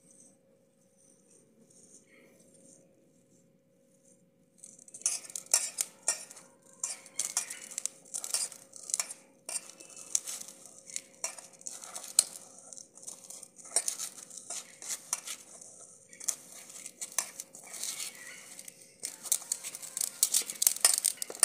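Hands crumbling paneer and kneading it into mashed potato in a steel bowl: quiet at first, then from about five seconds in a dense run of clicks, knocks and scrapes as fingers work against the bowl's metal sides.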